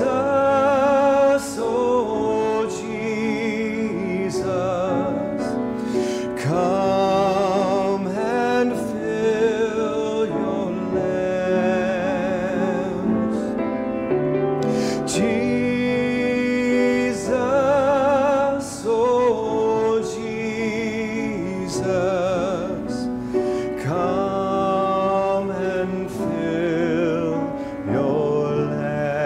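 A solo singer with strong vibrato singing a slow worship song, with piano accompaniment.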